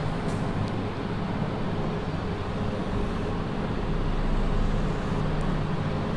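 Steady low rumble of room background noise with a low hum, and a few faint ticks of chalk on a blackboard.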